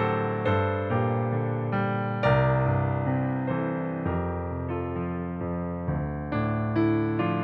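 Piano playing a slow minor-key hymn accompaniment with no voice, chords struck and left to ring, changing about every half second to second.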